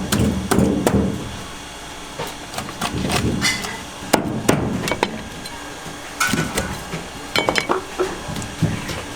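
A knife chopping down onto a cutting board while fish is cut up: sharp, irregular knocks that come in quick runs of several blows.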